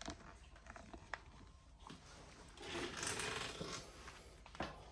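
Faint clicks from the Jack JK-58750B twin-needle lockstitch machine being set up, then, about two and a half seconds in, the direct-drive machine starting to sew for about two seconds with a quiet, even run.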